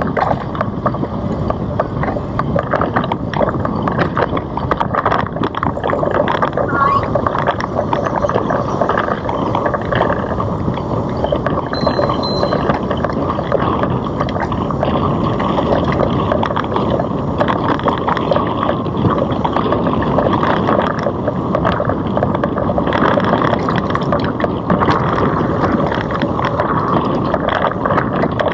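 Wind rushing over a GoPro microphone together with the road noise of a Citibike rolling along a paved path, with frequent small rattles and clicks. A brief high squeak comes about twelve seconds in.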